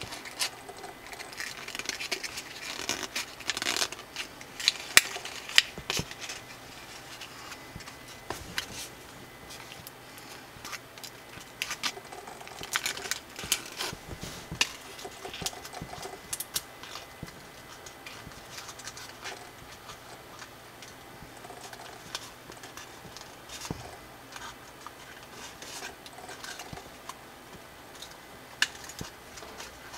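Coloured origami paper rustling and crinkling as fingers fold and press creases into it, with irregular sharp crackles and snaps of the paper. Busiest in the first several seconds and again about halfway through.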